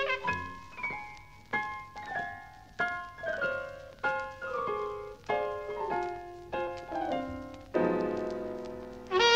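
Jazz piano playing alone in a live swing band performance: chords and short runs are struck about once or twice a second, each dying away, with a longer held chord near the end.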